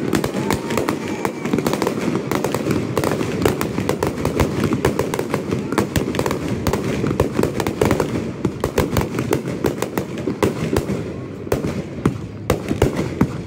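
Aerial firework shells bursting in a dense, rapid barrage, bangs and crackles overlapping almost continuously, thinning to more separate bangs near the end.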